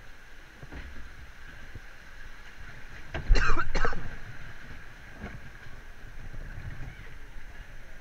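Log flume boat gliding slowly through its water channel, with a low rumble of water and hull and a faint steady whine. About three seconds in there is a loud thump and rattle lasting under a second.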